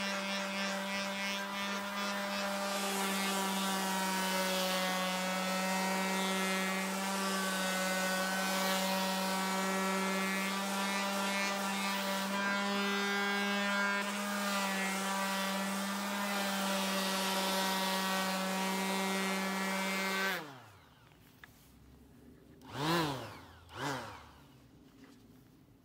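TOTAL TF1301826 electric finishing sander running under load with a steady hum, its pad sanding an old painted wooden board. About 20 seconds in it is switched off and winds down quickly, followed near the end by two short blips that rise and fall in pitch.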